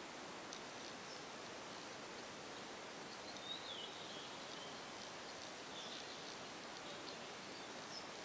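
Quiet steady background hiss with a few faint, high-pitched chirps and ticks. The clearest is a short falling chirp about three and a half seconds in.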